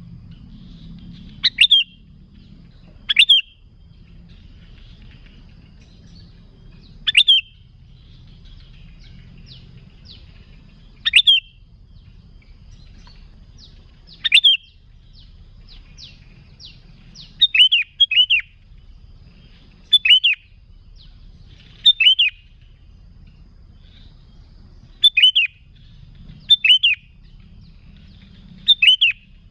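Sooty-headed bulbul (kutilang) calling: short, loud, sharp notes that sweep up and drop back, repeated every couple of seconds, sometimes in quick pairs, with fainter twittering between them. A low steady hum runs underneath.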